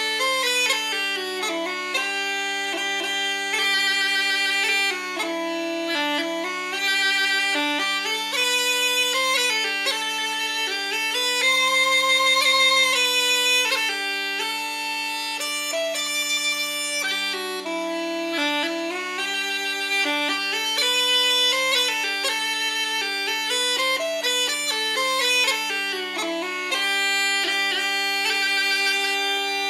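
Uilleann pipes playing a tune: the chanter's melody moves over steady drones that sound unbroken throughout.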